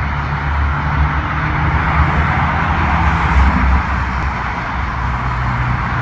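Steady road traffic: cars passing with tyre hiss over a low engine rumble, a little louder about three seconds in.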